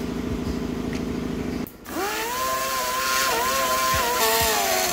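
A steady low hum, then a handheld die grinder spins up about two seconds in with a quickly rising whine. It runs at high speed, its pitch dipping and sagging as the bit cuts into the aluminium bellhousing, and falls away near the end.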